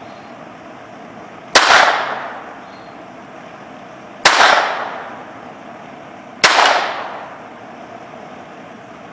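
Three single shots from a Browning Buck Mark .22 LR semi-automatic pistol, two to three seconds apart, each a sharp crack with an echo dying away over most of a second.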